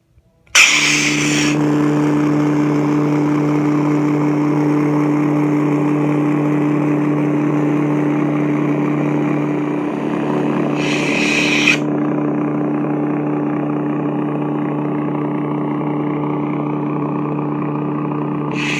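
Lightsaber sound board (Nanobiscotti V3) playing an ignition sound, then a steady low electric hum. About eleven seconds in there is a short bright burst over the hum, and a deactivation sound begins at the very end.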